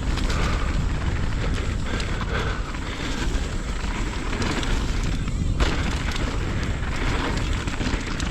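Wind rumbling on the microphone during a fast mountain-bike descent. Under it are the tyres rolling over rough dirt trail and scattered clicks and knocks from the bike.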